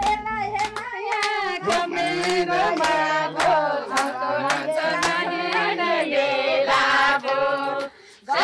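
Voices singing a Nepali song to steady hand clapping, about three claps every two seconds. The singing and clapping break off briefly near the end.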